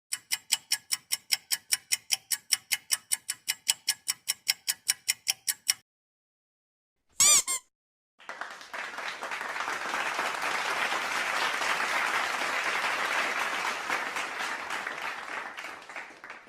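A string of comedy sound effects. First comes a clock-like ticking, about five ticks a second for some six seconds, then a brief warbling tone, then applause for about eight seconds that fades out near the end.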